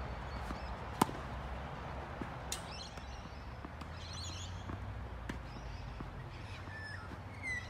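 Tennis rally: a sharp racket-on-ball hit about a second in, then fainter hits and bounces, over a steady low outdoor rumble. Birds chirp in between, with a short call near the end.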